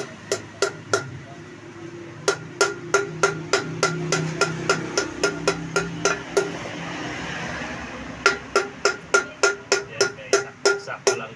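Hammer tapping on metal at the wheel-bearing seat of a motorcycle's aluminium brake-drum hub, driving the bearing and its homemade galvanized-sheet shim in tight. The taps come in runs of about three to four a second, each with a short metallic ring: three taps, then a long run, a pause, and a faster run near the end.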